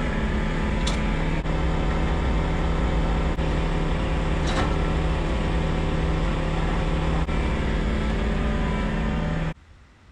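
An engine running steadily, a constant low drone that cuts off suddenly near the end.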